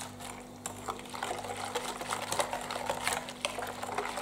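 Silicone whisk beating a thin milky custard mixture in a glass bowl: rapid, quick ticks of the wires against the glass with the liquid sloshing.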